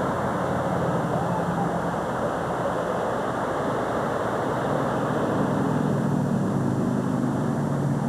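Steady rushing noise of surf and wind at the shore. About halfway through, a low engine hum comes in and grows louder.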